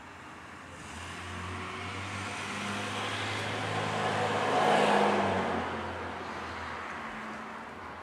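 A car passing by: engine and tyre noise swells to a peak about five seconds in, then fades away.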